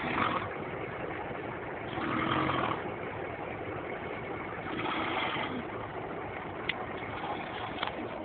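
A person snoring, three snores about two and a half seconds apart, over the steady hum of an idling truck engine. Two sharp clicks near the end.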